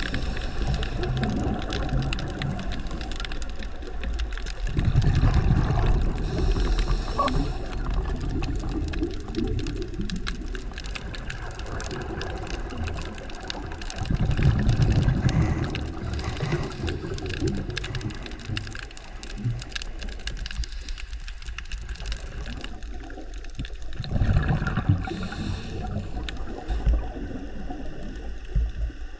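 Underwater ambience picked up by a camera on the seabed: a steady low rumbling, gurgling water noise that swells louder three times, about ten seconds apart.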